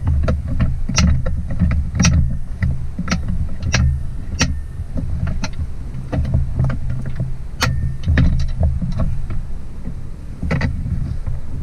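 Metal clicks and knocks from the Jotto Desk mount's hardware as a threaded fastener is spun in by hand and the bracket is handled, irregular, one to three a second, over low rumbling thumps.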